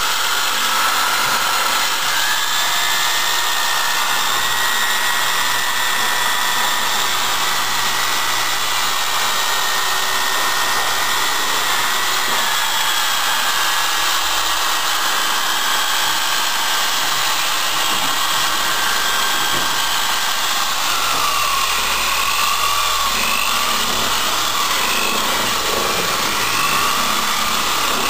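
Corded electric drill running continuously, spinning a mixing rod through two-part epoxy compound in a steel can. Its motor whine steps up in pitch about two seconds in, drops back twice later and wavers for a few seconds near the end.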